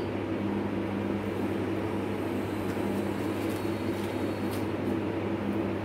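A steady low machine hum with an even background hiss, unchanging throughout.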